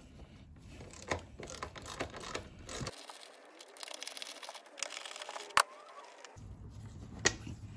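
Faint, irregular clicks and taps of a small ratchet with a T25 Torx bit undoing the self-tapping screws of an air filter lid, with one sharper click about five and a half seconds in.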